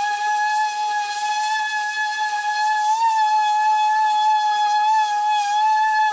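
Handheld electric detail sander running against a foam boat hull, a steady high whine with a slight wavering in pitch as it is pressed and moved over the foam.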